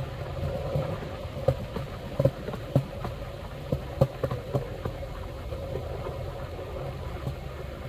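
Skateboard wheels rolling on smooth polished concrete, a steady low rumble heard from on the board's deck, with a handful of sharp clicks and knocks in the first half.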